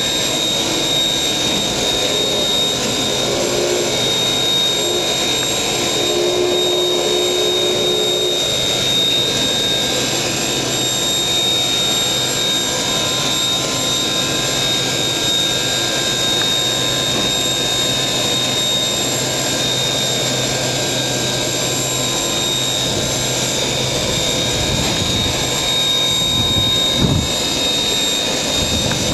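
Steady hiss and a steady high whine from a live steam locomotive, Canadian Pacific 2317, as it is turned on a turntable, with a brief knock near the end.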